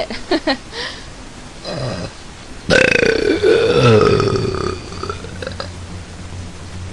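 A woman belching deliberately: a short, quieter belch about a second and a half in, then a loud, long, chunky belch of about two seconds that wavers in pitch.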